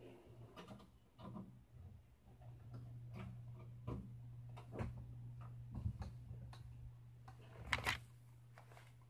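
Faint scattered clicks and taps of handling over a steady low hum that gets louder about three seconds in. The loudest knock, near the end, is a hand bumping the recording device.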